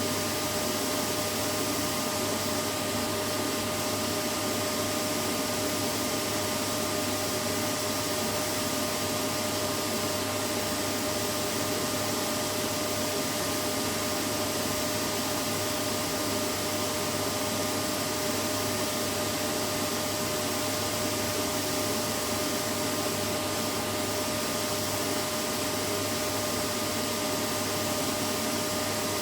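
Vacuum cleaner running steadily: an even rushing noise with a constant whine, unchanging throughout.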